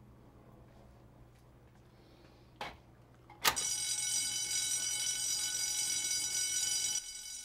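A fire alarm pull station is pulled with a sharp click about three and a half seconds in, and the building's fire alarm starts at once, a loud steady alarm tone that drops away sharply near the end.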